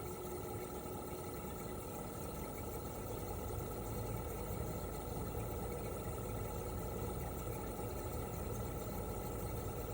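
Toshiba RAS-285BAD outdoor air-conditioner unit running steadily in cooling mode: its twin rotary compressor and propeller fan hum, with a steady higher tone above, and the low hum grows stronger about three seconds in.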